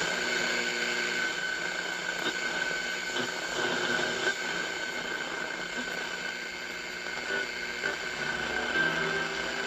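1960s Airline tube radio's speaker tuned to the AM band, giving out steady static hiss with a constant high whistle.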